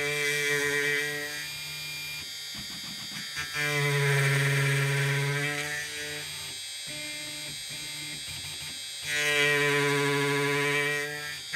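CNC router spindle driving an end mill into a metal workpiece held in a vise. Each pass of the cutter brings a loud, steady pitched ringing with a gritty cutting noise, three times, with the spindle running more quietly between passes.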